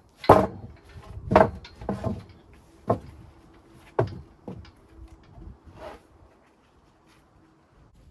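A series of irregular knocks and clunks, about seven hits over six seconds, the first two the loudest, after which it goes quiet.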